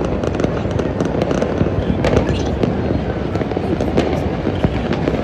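Many fireworks going off at once: a steady din of crackling and popping with sharp bangs scattered throughout.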